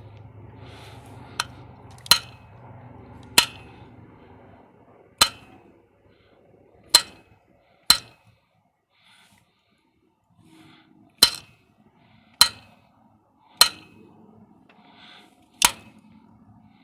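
Channel-lock pliers knocking on the engine block, about ten sharp metallic clinks one to two seconds apart at uneven intervals. Each knock jars the knock sensor so it puts out an AC voltage during a knock-sensor test.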